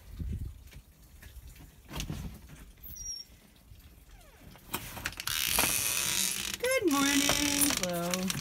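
Glass storm door being opened: a rubbing, rattling rush of the door moving, then two drawn-out creaks from the hinges or closer, the first sliding down in pitch and held, the second lower.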